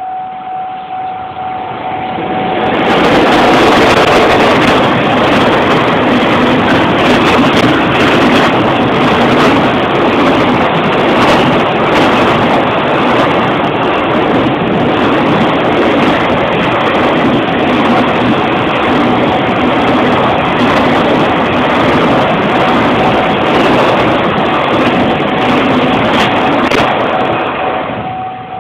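Long freight train, hauled by an EF66 electric locomotive, passing over a railway level crossing for about 25 seconds: a steady rolling rush with rapid clacking of wagon wheels over the rail joints. The crossing's electronic bell rings in a steady pulsing tone at the start and again near the end, drowned out while the train goes by.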